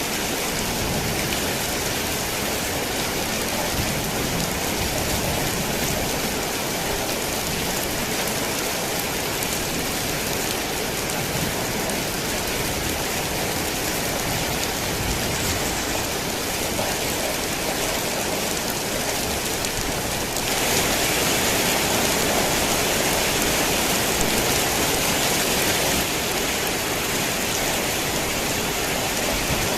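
Heavy rain pattering steadily on a tin roof, a dense, even hiss. About two-thirds of the way through, the rain swells louder for several seconds, then eases back.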